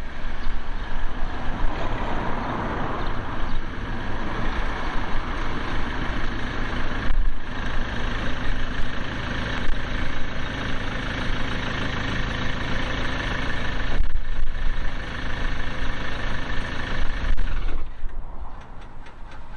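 Ford Transit MK7 van's engine running as the van is manoeuvred in to the kerb and left idling, then switched off about two seconds before the end.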